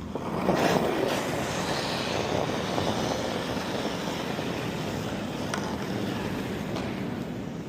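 Curling stone sliding down the pebbled ice with a steady rumble, loudest about half a second in.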